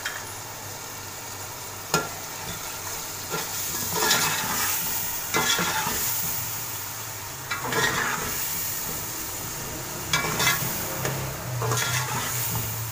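Chana dal with tomatoes and green chillies frying in oil in a metal pot, sizzling steadily while the masala is roasted (bhuna). A metal slotted spatula stirs and scrapes the pot in about six separate strokes.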